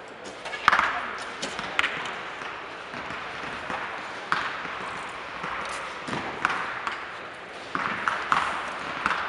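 Recurve bows being shot along a shooting line: sharp snaps of bowstrings and arrows striking target butts, echoing in a large indoor hall, irregularly about every second or two, over a murmur of voices.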